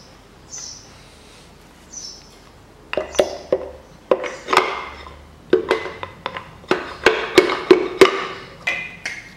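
A hammer repeatedly striking a wooden stick held against a piston and connecting rod, driving the piston out of its cylinder in a Mitsubishi 4B10 engine block. The sharp, irregular knocks, about a dozen, begin about three seconds in.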